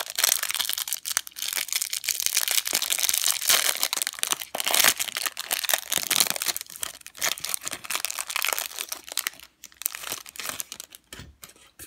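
Clear plastic wrapper of a football trading card pack crinkling loudly as it is pulled open, a dense crackle that thins to a few scattered clicks near the end.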